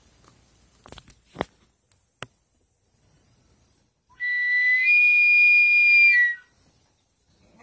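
A few sharp clicks, then a loud, steady high-pitched whistle held for about two seconds, falling slightly just before it stops.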